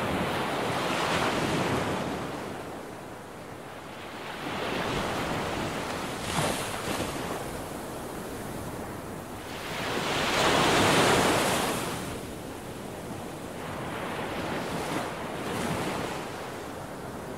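Waves washing in, the rush of water swelling and ebbing every few seconds, with one bigger surge about ten seconds in.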